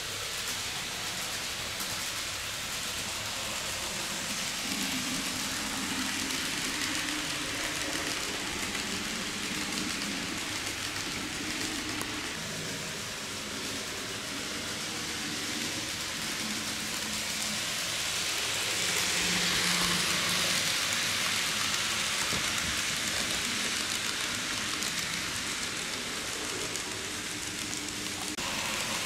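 N-gauge model train running on layout track: a steady, rain-like rushing rattle of small wheels on the rails over a faint, wavering motor hum, growing a little louder about two-thirds of the way through.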